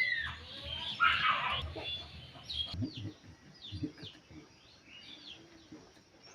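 Birds chirping: a run of short, high, falling chirps through the second half, after a louder, rougher burst of sound about a second in.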